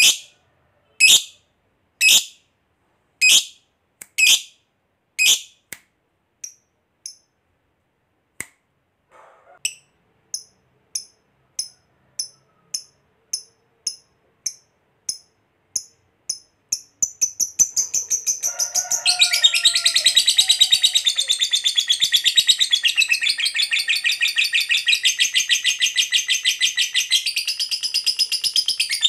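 Lovebird calling: loud single sharp chirps about once a second, then softer quick chips. About 17 seconds in, it breaks into a long, rapid chattering trill, the 'ngekek panjang' that keepers prize and play to set other lovebirds singing.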